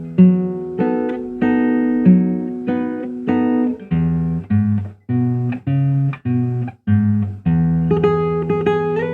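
Acoustic guitar playing a plucked melody over bass notes, note by note with brief pauses between phrases, and a slide up in pitch near the end.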